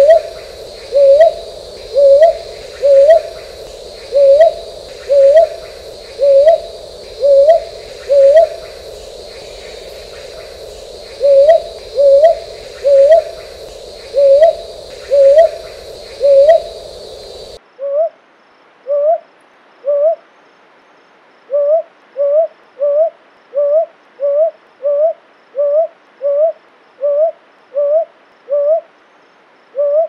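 Brown hawk-owl (brown boobook) calling: a long series of short, rising 'hoo-up' notes repeated about once a second, with a brief pause about a third of the way through. In the last third the notes come faster, nearly two a second. A steady background hiss cuts off suddenly about two-thirds of the way in.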